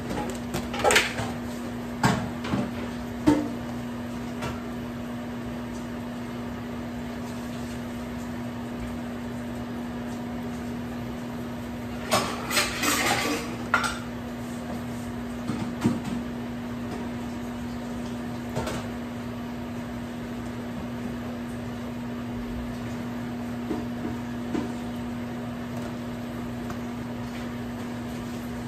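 Dishes, cookware and utensils clattering and knocking: a few sharp knocks in the first few seconds, a busier clatter about twelve seconds in, and scattered knocks after that, over a steady low hum.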